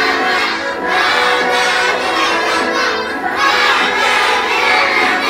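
A roomful of children's voices singing and shouting together over music, loud and continuous.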